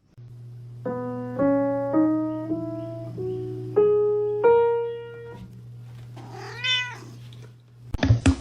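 Single keyboard notes climbing a scale one at a time, each ringing and fading, over a steady low hum, followed by one rising-and-falling cat meow near the end.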